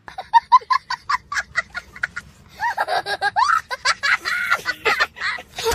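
Laughter sound effect: a quick run of short, high-pitched giggles for about two seconds, then longer, wavering laughing.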